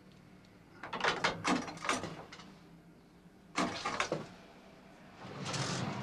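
Clatter of a telephone booth's handset being hung up and the booth's door being opened: a cluster of clicks and knocks, two sharp knocks a little later, then a short swell of rustling noise near the end.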